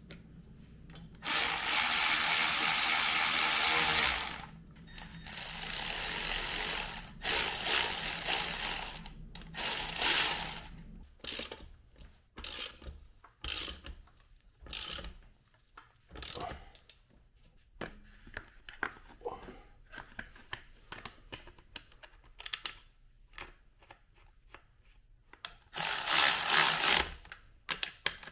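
A ratchet wrench worked in several bursts of rapid clicking, the longest about three seconds, with scattered short clinks of tools and metal parts in between.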